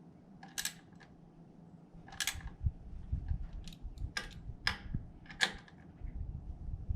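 Metal hand tools clicking and tapping on the motorcycle's brake caliper bolts, about six sharp clicks spread out over a low rumble.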